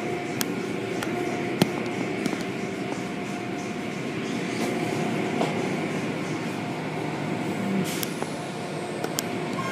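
A steady mechanical hum with a few sharp clicks scattered through it.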